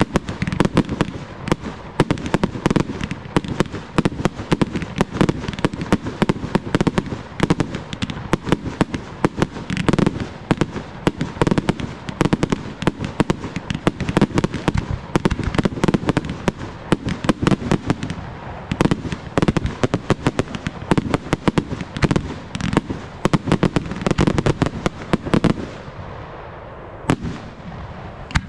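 Fireworks display: a dense, continuous barrage of launches and bursting aerial shells, many sharp bangs and cracks a second. It thins out briefly near the end.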